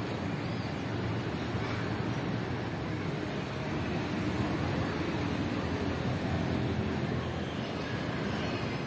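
Steady outdoor background noise: an even, low rumble of the open city air with no distinct events.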